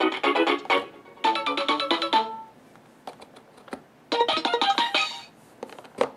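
Fisher-Price Laugh & Learn Puppy's A to Z Smart Pad playing short electronic jingles as its light-up shape buttons are pressed. One quick tune runs for about two seconds, then a pause with a few faint clicks, then another brief tune starts about four seconds in.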